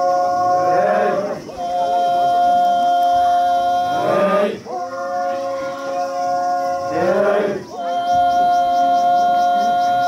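A group of men chanting in unison, each phrase one long held note of about two to three seconds that breaks off in a short sliding call before the next begins, three times. It is a traditional field-work chant (ohnet).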